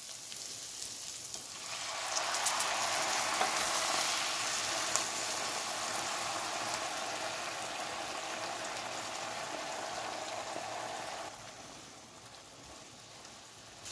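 White wine sizzling and bubbling as it reduces in a hot frying pan of fried chorizo slices and onion, stirred with a silicone spatula. The sizzle grows louder about two seconds in and drops off sharply near the end.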